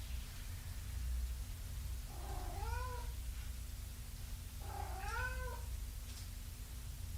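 A domestic cat meowing twice, about two and a half seconds apart; each meow rises and then falls in pitch. A steady low hum runs underneath.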